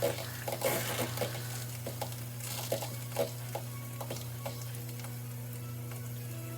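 Light clinks and knocks over a steady low hum; the knocks stop about four and a half seconds in.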